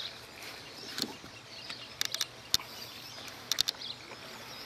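Faint bird calls over open-air background, with two quick clusters of sharp clicks about two and three and a half seconds in and a single sharp click between them.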